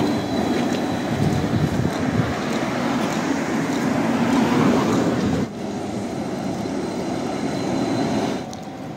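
City street traffic with vehicles passing close by. The noise drops suddenly about five and a half seconds in, and again near the end.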